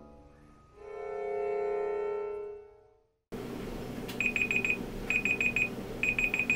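Slow chamber music: a long sustained chord of bowed strings that swells and fades, cut off suddenly about three seconds in. Then a phone alarm starts beeping near the end, in quick clusters of high beeps about once a second.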